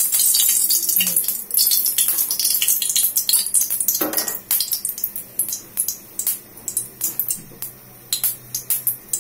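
Cooking oil poured into hot ghee in a steel karai, crackling and spitting with a hiss and many sharp pops. The crackle quietens about five seconds in, leaving scattered pops.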